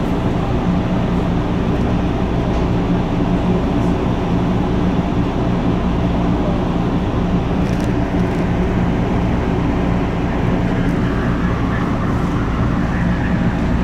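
Inside a Red Line subway car rolling slowly: a steady rumble of wheels on rail with a constant low hum.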